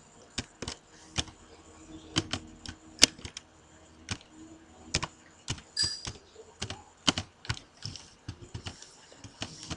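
Typing on a computer keyboard: irregular single keystroke clicks with short pauses between bursts, the loudest click about three seconds in.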